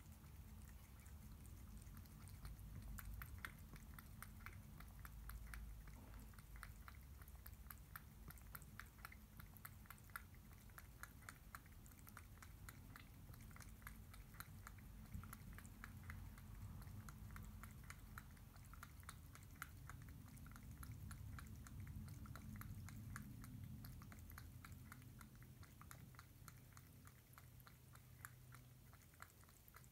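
A cat chewing and lapping wet cat food from a stainless steel bowl: a faint, quick, even run of small wet clicks, several a second.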